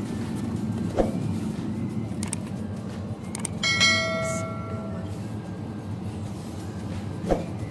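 Supermarket aisle ambience with a steady low hum. About three and a half seconds in, a single bell-like chime rings out for about a second, and two short knocks come near the start and near the end.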